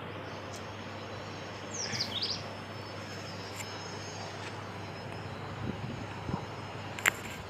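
Steady outdoor background noise with a low hum. A bird gives a few quick chirps about two seconds in, and there is a sharp click near the end.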